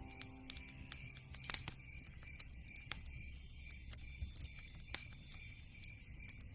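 Wood fire burning in a fireplace, crackling with irregular sharp pops and snaps of varying strength.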